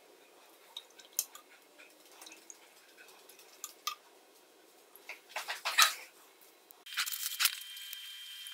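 Faint drips and light clinks as a steel knife blade is dipped into and lifted from a tube of etching liquid, with a short cluster of louder clicks and drips about five and a half seconds in. Near the end, after a change of scene, a few small plastic clicks from a bottle being handled.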